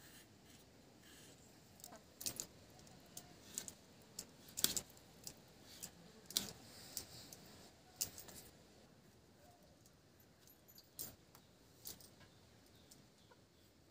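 Irregular crisp snicks of a curved hand-held blade cutting raw papaya, mixed with the light clink of glass bangles on the cutting wrists. The clicks come in a loose cluster through the middle, then a couple more later.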